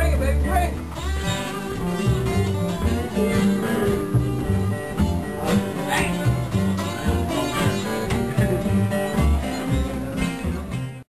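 Live blues band playing in a rhythmic groove. It stops abruptly near the end.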